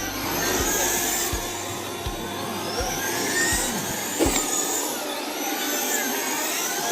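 Several RC race cars' electric motors whining as they lap the track, the whines gliding up and down in pitch as the cars speed up and slow down.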